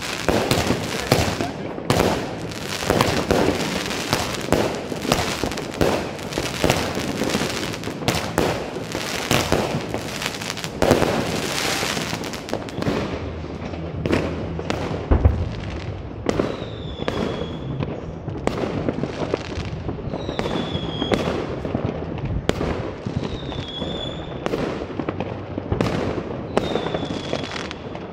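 Fireworks going off in quick succession: a dense run of bangs and crackling pops that thins out about halfway through into separate bangs. In the second half a short falling whistle sounds every few seconds.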